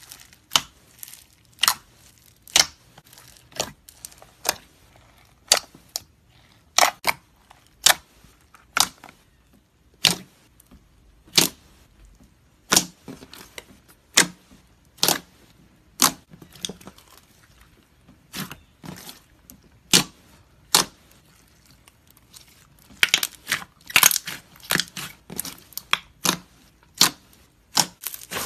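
Slime being squeezed and pressed by hand, letting out sharp pops and clicks about once a second as trapped air bursts. The pops come thicker and crackly near the end.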